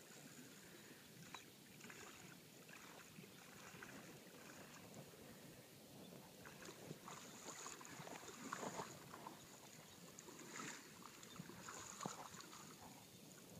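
Near silence: faint sloshing of shallow water around a wading angler's legs, with a few soft splashes.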